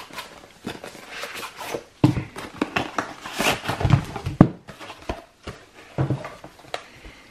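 Cardboard and paper rustling and sliding as printed items are pulled out of a cardboard mailer and handled, with a few knocks as things are set down on the table.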